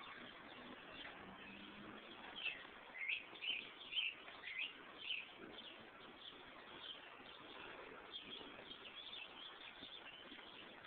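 Small birds chirping: a run of short, high chirps about two to five seconds in, then scattered chirps over a faint steady hiss.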